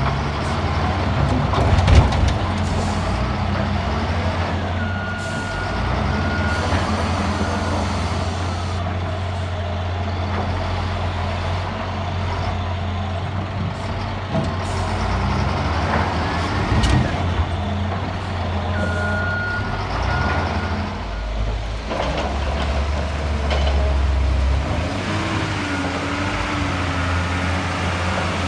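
Heavy diesel quarry machinery running steadily, with a sharp knock about two seconds in and a few short high beeps along the way.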